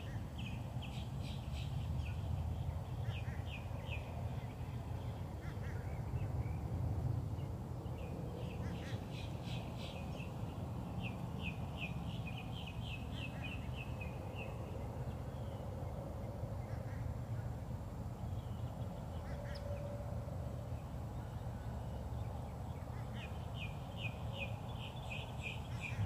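Birds calling outdoors in several runs of quick, short, high notes, the longest run lasting about six seconds, over a steady low rumble.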